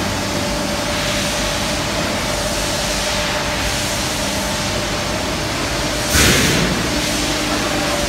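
Steady machinery noise of an industrial powder-coating line for aluminium wheels: a constant hum with a steady mid-pitched whine, and a short, louder rush of noise about six seconds in.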